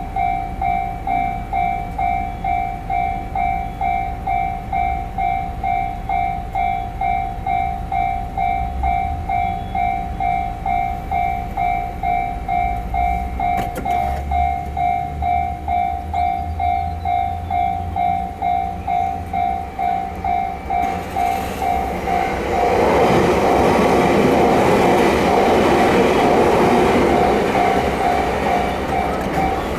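Japanese railway level-crossing warning bell ringing steadily, about two strokes a second. About two-thirds of the way through, a train passes over the crossing and its rushing wheel and running noise rises over the bell.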